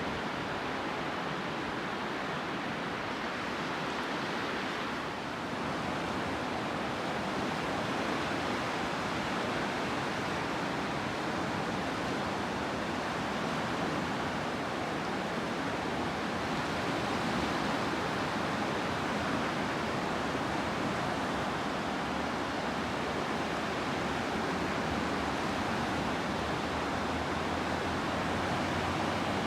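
Sea surf on a shore: a steady rushing wash of waves with slight rises and falls in level.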